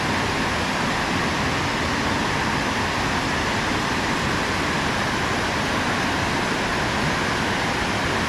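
Steady, even rush of water pouring over the dam, unchanging throughout.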